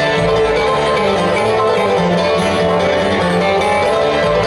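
Bluegrass band playing live, with an acoustic guitar picked fast and to the fore.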